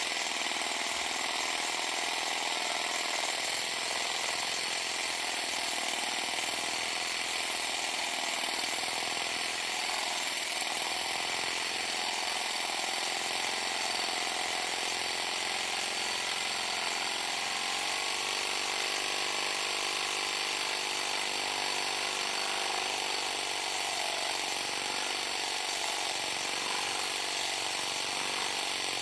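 Power tool with a cutting blade running continuously as it cuts through the grout between ceramic tiles; its motor pitch drifts slightly under load.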